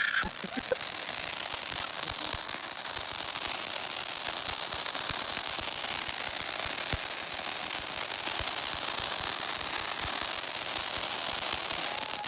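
Ground fountain firework burning: a steady hiss of spraying sparks with a dense crackle, cutting off abruptly near the end.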